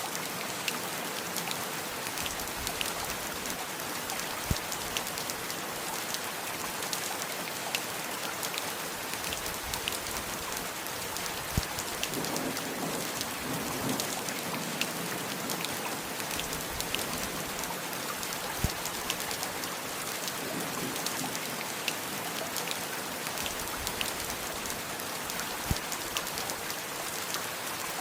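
Heavy rain falling steadily, an even hiss full of small drop ticks, with a louder single drip every several seconds.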